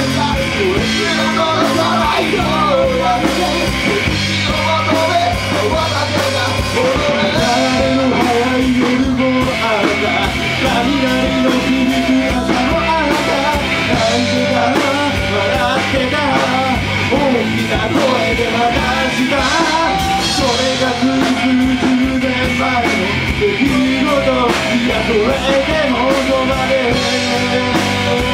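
Rock band playing live and loud: singing over electric guitar and bass guitar.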